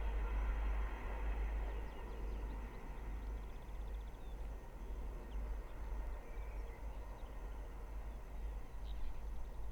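Thameslink Class 700 electric train moving away after passing, its hum fading out over the first couple of seconds. Then a steady low rumble with a few faint bird chirps.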